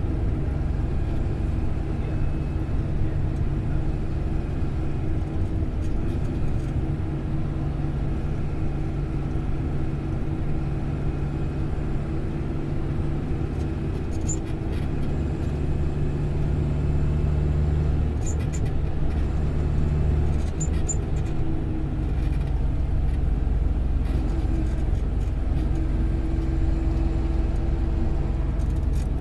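Moving bus heard from inside the cabin: a steady engine drone and road rumble, with a low hum that holds its pitch for long stretches. A few faint ticks come near the middle.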